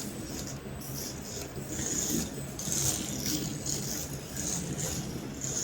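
A toy-sized Hot Wheels RC car's electric motor whirring in short, repeated bursts as it is driven back and forth on a table.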